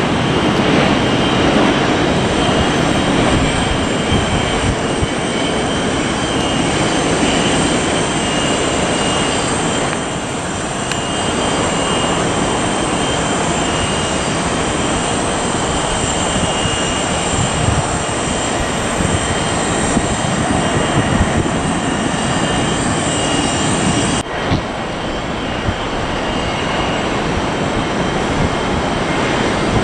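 Jet engine noise of a Boeing 777-200ER landing: a steady, loud rumble with a thin high whine on top. After an abrupt cut about 24 seconds in, the jet noise of an Airbus A321 on approach.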